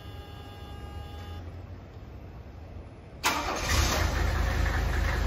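A low steady hum, then about three seconds in the 1979 Mercedes-Benz 300SD's 3.0-litre turbodiesel inline-five cranks, fires suddenly and settles into a steady idle. The engine is already partly warmed up and is started after the glow plugs have preheated.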